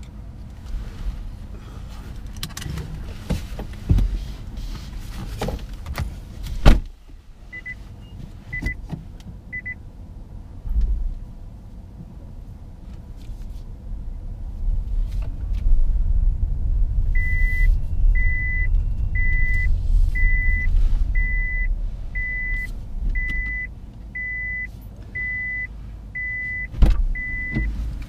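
Car cabin noise: low road and drive rumble, a sharp thump about a quarter of the way in, and a car's high electronic warning beep, three times and then repeating steadily about once a second through the second half.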